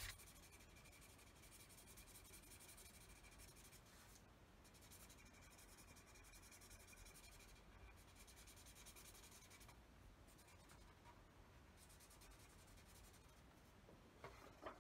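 Faint, continuous scratching of a felt-tip pen colouring on paper, with a light knock near the end.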